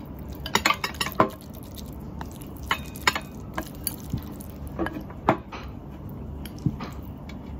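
Wooden chopsticks clicking and scraping against bowls as noodles are stirred and picked up: a quick run of sharp clinks about a second in, then single clinks every second or so.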